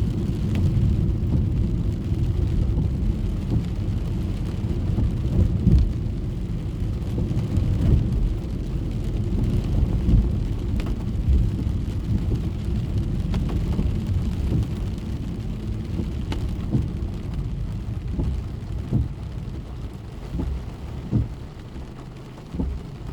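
Rain pattering on a moving car's roof and windshield, heard inside the cabin over a steady low rumble of road and engine noise, with scattered sharp drop ticks. The rumble fades somewhat in the last few seconds.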